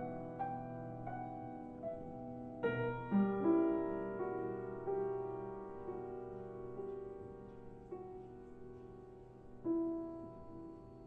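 Slow, soft background piano music: chords struck and left to fade, with a new chord about three seconds in and another near the end.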